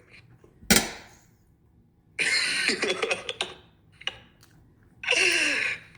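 A single sharp cough about a second in, then two short stretches of indistinct voices.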